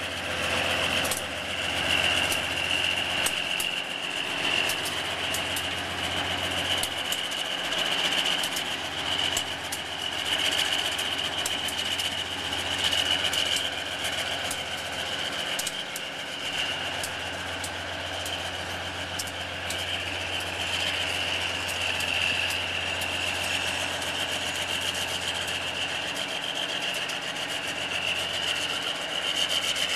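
Two GE diesel-electric locomotives, narrow-gauge and working together, running as they move slowly past. There is a steady low engine hum under a steady high whine, with scattered light clicks.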